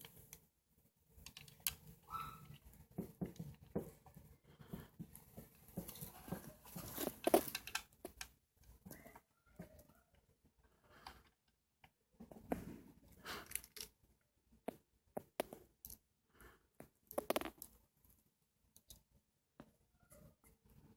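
Scattered light clicks and taps of small metal lock parts, nuts and extenders, being handled and fitted together by hand.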